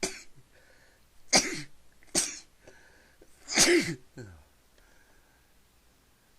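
A person sneezing four times in quick succession, the last sneeze the longest, with short breaths between. The sneezes are set off by pepper in the nose.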